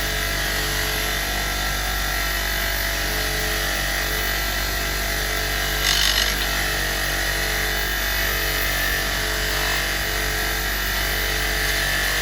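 A small electric power tool's motor running steadily at one speed, with a short scraping hiss about six seconds in.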